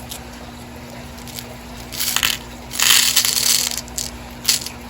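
Small glass leaf beads being handled in their plastic packet, crinkling and clinking in a few short bursts, the longest about a second long past the middle.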